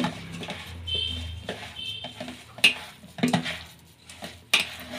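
Soaked poha, semolina and curd being mixed by hand in a steel bowl: soft squishing and scraping, with a few sharp clicks against the bowl in the second half.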